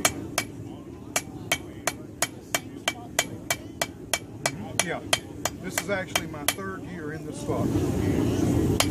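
Blacksmith's hand hammer striking metal on an anvil in a steady run of blows, about three a second, each with a short ring. The hammering pauses briefly near the end, then starts again.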